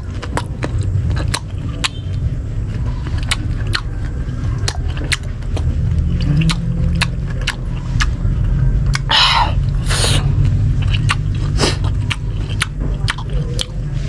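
Close-miked chewing of crisp green mango with sweet, spicy shrimp paste (bagoong alamang): a run of sharp crunches and wet mouth clicks. Two louder breathy hisses come about nine and ten seconds in, over a steady low rumble.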